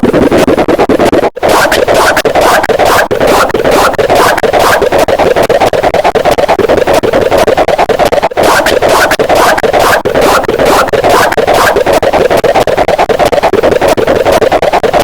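Stomach growling sound effect, heavily processed and distorted, playing very loud as a dense gurgling rumble with a fast pulsing of about three beats a second. It drops out briefly about a second in and again about eight seconds in.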